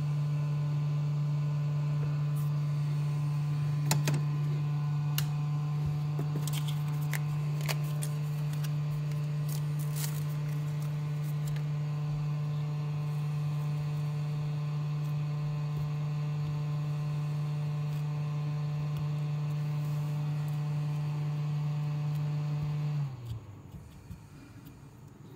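A steady, even electrical hum from the workbench equipment, cutting off abruptly about 23 seconds in. Light clicks and taps of tools on the circuit board come between about 2 and 11 seconds.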